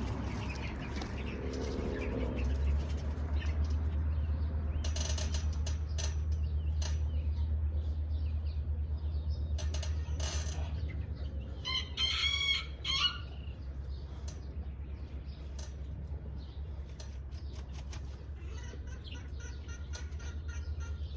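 A rooster crows once, about twelve seconds in, over a steady low outdoor rumble, with a few scattered clicks before it.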